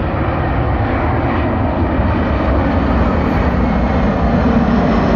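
Boeing C-17 Globemaster III's four turbofan jet engines during a low, slow flyby: a deep, steady jet rumble that grows slowly louder as the aircraft comes nearly overhead.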